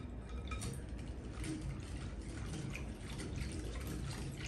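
Wire whisk stirring citrus juice in a glass bowl to dissolve cornstarch and sugar: a steady liquid sloshing with faint light ticks of the wires against the glass.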